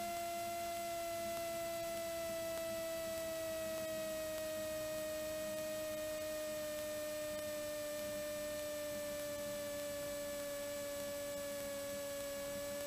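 Steady electrical whine on the Cessna 182T's cockpit intercom audio, slowly dropping in pitch during the landing roll-out.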